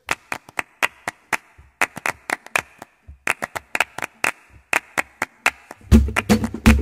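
Flamenco palmas: rhythmic hand clapping in a quick, syncopated pattern. Near the end, a low bass and drum come in under the claps.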